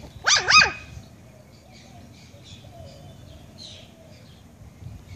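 Chihuahua puppy giving two quick, high-pitched barks in a row, barking at a gar's head on the ground.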